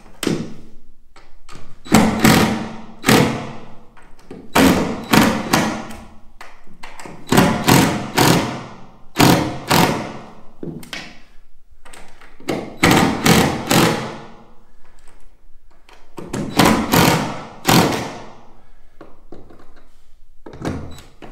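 Cordless DeWalt impact driver driving screws through an aluminium corner trim strip into the box wall, in about seven short bursts of roughly a second each with pauses between.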